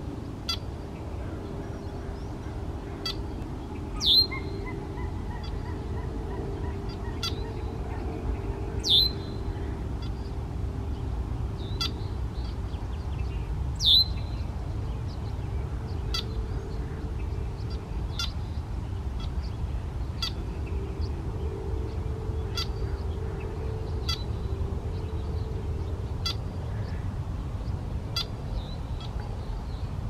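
Male red-winged blackbird calling: short sharp call notes every second or two, with three louder, steeply falling calls about four, nine and fourteen seconds in. A low background rumble and faint hum run underneath.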